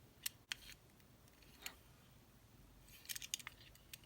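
Faint, quiet handling noise: a few light clicks and taps of small hard objects being picked up and moved, with a quick run of clicks near the end.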